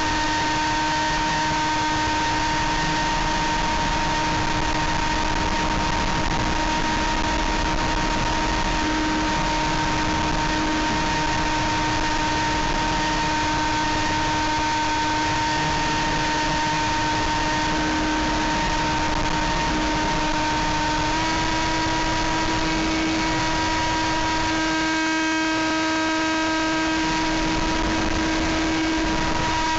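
Electric motor and pusher propeller of a Sky Surfer v5 RC glider in flight, heard from a camera mounted on the plane: a steady whine over wind rush. The whine steps slightly higher in pitch about two-thirds of the way through.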